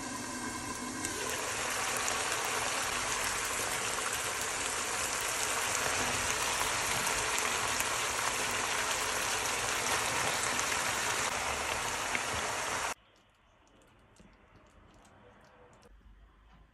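Meat and vegetables sizzling and bubbling in sauce in a wok: a steady loud hiss that cuts off suddenly about 13 seconds in, leaving quiet room tone.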